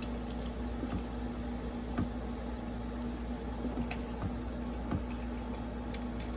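Scattered light clicks and taps of tools and chainsaw parts being handled during disassembly, about one every second, over a steady low hum.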